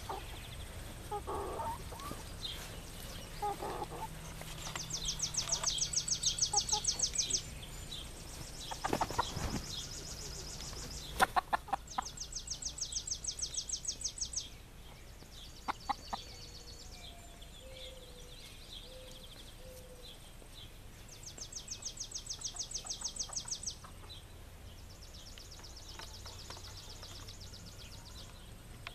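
Backyard hens (Buff Orpington and Golden Laced Wyandotte) clucking and calling now and then in the grass. A loud high, fast-pulsing trill comes and goes three times and is the loudest sound, and there is a sharp click about eleven seconds in.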